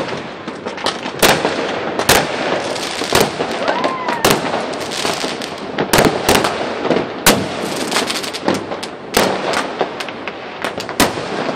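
Fireworks and firecrackers going off all around: about a dozen sharp bangs at irregular intervals over continuous crackling.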